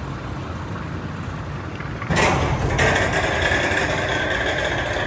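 An engine running steadily. About two seconds in the sound turns abruptly louder and brighter and then holds steady.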